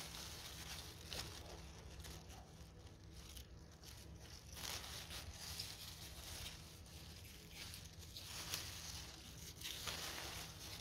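Soft rustling and crinkling handling noise in uneven swells, over a low steady hum.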